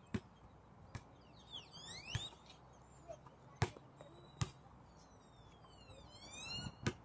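A basketball bouncing on an outdoor court: about six sharp thuds at uneven intervals. Clusters of high rising chirps come about two seconds in and again near the end.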